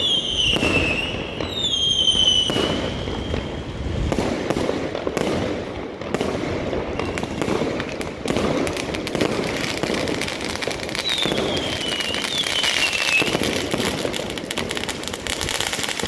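Fireworks display: a dense, continuous run of bangs and crackling bursts from aerial shells. Whistling rockets fall in pitch twice near the start and twice more about two-thirds of the way through.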